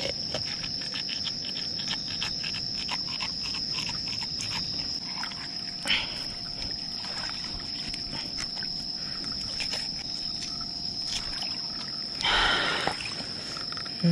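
Steady high-pitched insect chorus with faint clicking, and a short louder rush of noise about twelve seconds in.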